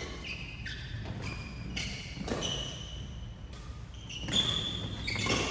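Badminton rally on a wooden court: sharp racket hits on the shuttlecock and shoes squeaking as players move, with the loudest hit about four seconds in.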